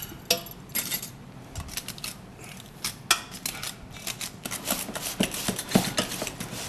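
Metal potato masher working boiled potatoes, butter and cream in a stainless steel saucepan: irregular clinks and knocks of the masher against the pot, coming faster in the second half.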